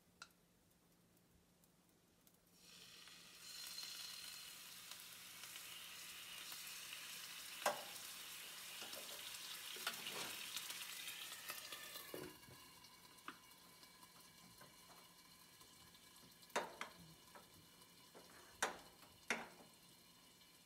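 Water added to a hot nonstick frying pan around a souffle pancake, sizzling from about two and a half seconds in and dying down around twelve seconds, for steaming the pancake. Several sharp clinks of cookware follow, among them the glass lid being set on the pan.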